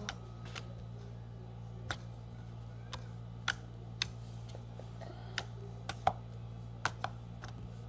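Putty-like mint slime being pressed and folded by hand, giving about a dozen short, sharp clicks and pops at irregular intervals, over a steady low hum.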